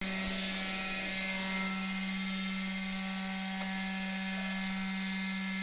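Concrete poker vibrator running with a steady buzz.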